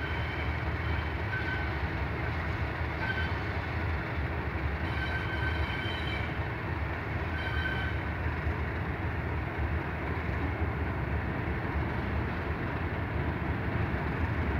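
British Rail Class 31 diesel locomotive approaching slowly at the head of a passenger train, its English Electric V12 engine running with a steady low rumble over the noise of the wheels on the rails. It grows a little louder near the end as it draws close.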